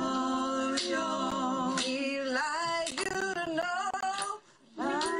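A woman singing a mock hymn without accompaniment, holding long notes with a wavering vibrato. She breaks off for a breath about four and a half seconds in, then sings on.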